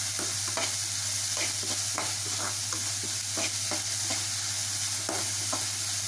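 Chopped onions and green chillies sizzling in hot oil in a metal kadai while a perforated spoon stirs and scrapes them against the pan about twice a second, the onions being sautéed until soft.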